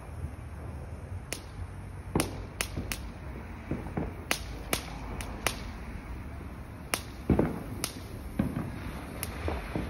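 Ground fountain firework burning and crackling: about a dozen sharp cracks at uneven intervals.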